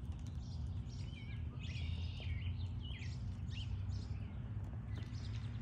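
Small songbirds chirping and singing in short whistled phrases that slide up and down in pitch, over a steady low hum.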